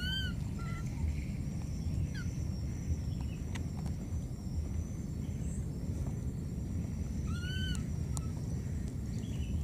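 Baby macaque calling for its mother: a short arched call at the start and a longer rising-and-falling call about three-quarters of the way through, over a steady low rumble.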